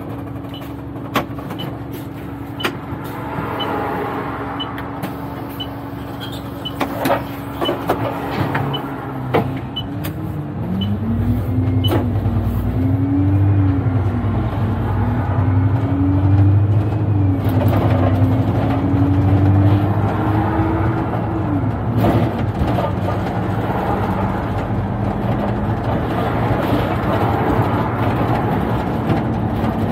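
Alexander Dennis double-decker bus engine idling, with a light regular ticking about three times every two seconds. About nine seconds in the bus pulls away under load: the engine note rises and falls several times through the gear changes, then settles lower near the end.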